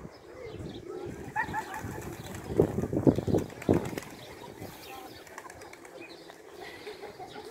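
Feral pigeons at a fountain, their wings flapping as they take off and land, with the loudest flurry of flapping about three seconds in.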